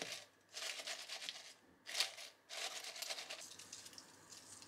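Chopsticks pushing raw cabbage leaves down in a stainless steel pot: crisp rustling and crunching of the leaves in three bursts, with a sharp click about two seconds in.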